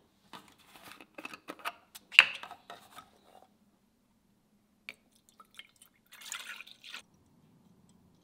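Milk being measured into a measuring cup: small clinks and drips of the cup and liquid, with one sharp clink about two seconds in, and a short splashy pour of milk near the end.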